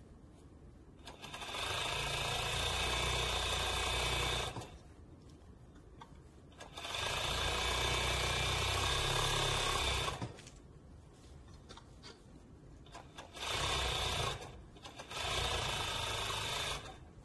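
Industrial overlock (serger) machine running at full speed in four bursts, the first two about three and a half seconds each and two shorter ones near the end, as it stitches and trims the raw edge of a knit sweater sleeve.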